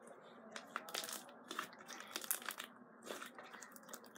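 Homemade slime being squeezed and worked by hand, giving faint, irregular crackling clicks.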